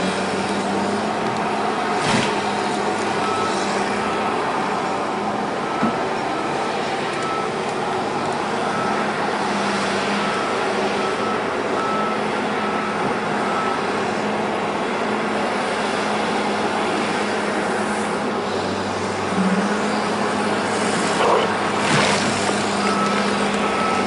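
Heavy diesel feller buncher running steadily, its engine holding a low, even hum. A machine's high warning beep repeats steadily for about ten seconds after the start and again near the end, and a couple of sharp knocks come through, one about two seconds in and one a couple of seconds before the end.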